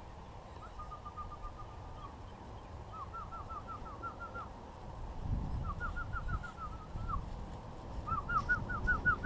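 A person whistling to call pigeons in to the loft: four runs of short, quick, upward-flicking whistled notes, each run about a second and a half long, repeated.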